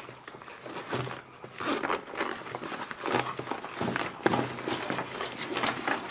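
Rustling and crinkling of a nylon tactical sling bag being handled, its pockets pulled open and the bag shifted about, in irregular bursts.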